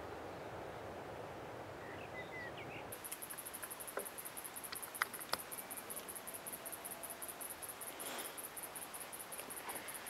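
High-pitched insect trill, a fast, even pulsing that comes in about three seconds in, over a soft outdoor hiss. A few faint clicks and a short chirp can be heard.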